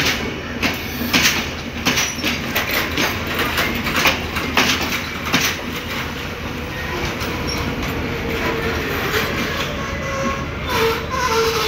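Passenger carriages rolling slowly over rail joints and points, their wheels knocking in an uneven series of clacks. Near the end the wheels squeal briefly with a wavering tone.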